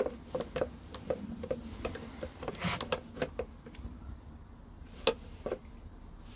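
Scattered clicks and light knocks of a plastic air intake box being pressed back onto an outboard engine's intake, with louder knocks a little under three seconds in and about five seconds in.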